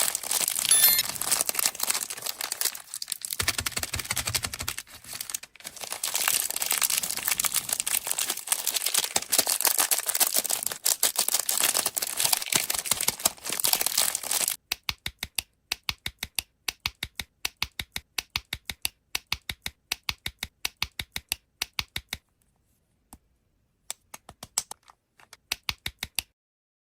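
Candy wrappers crinkling and tearing, a dense crackle for about the first half. Then a run of sharp, evenly spaced clicks, about four a second, thinning to a few scattered clicks near the end.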